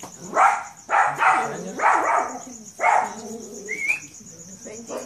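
A dog barking four times, a little under a second apart.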